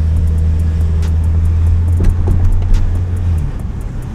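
A BMW 335i's twin-turbo inline-six engine heard from inside the cabin, driving slowly at low revs with a steady low drone. The drone drops away about three and a half seconds in as the automatic gearbox shifts up from second into third.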